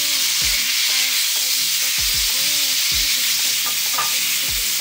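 Sliced peaches sizzling in melted butter in an enameled pan while a silicone spatula stirs them: a steady frying hiss broken by a few short, soft low thuds.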